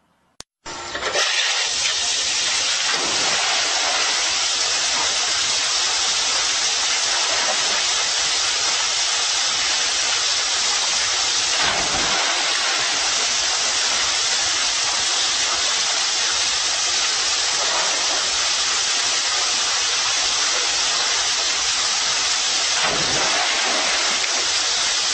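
Water rushing down a backyard pool water slide and pouring into the pool: a loud, steady, rushing hiss that starts abruptly under a second in and holds unchanged.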